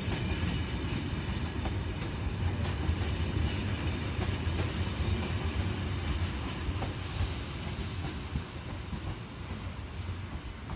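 Train running on the track: a steady low rumble with scattered clicks of wheels over rail joints, growing quieter near the end.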